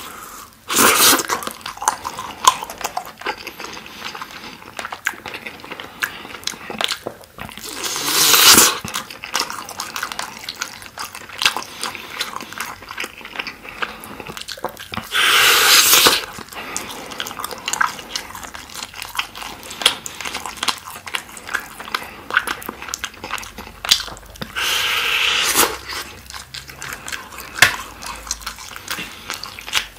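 Close-miked chewing and wet mouth smacks of sticky, glazed chicken skewer meat, with many small clicks. Four times, a louder sound lasting about a second stands out as a piece of meat is bitten and pulled off the wooden skewer.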